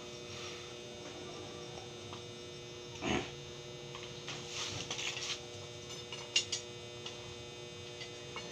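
Steady electrical hum from an arc welding machine, with a few brief knocks, crackles and a sharp click as metal is handled, the loudest click a little past the middle.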